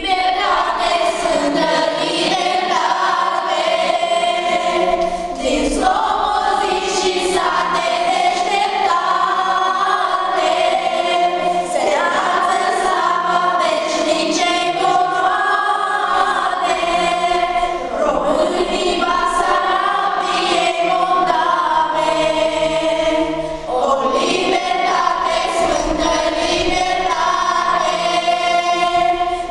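Children's choir singing a slow song together in long held notes.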